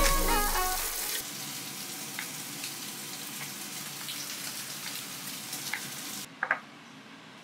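Pork belly sizzling on a grill: a steady frying hiss with a few small pops, which cuts off abruptly about six seconds in and is followed by one brief sharp tap. Background music fades out during the first second.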